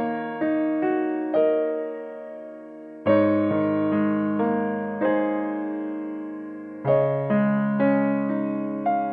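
Gentle background piano music: slow chords and single notes, each struck and left to fade.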